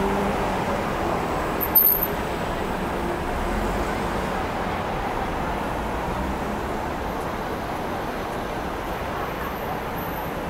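Steady city street traffic noise at a busy intersection, with one short sharp click about two seconds in.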